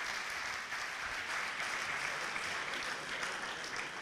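A large audience applauding, steady dense clapping.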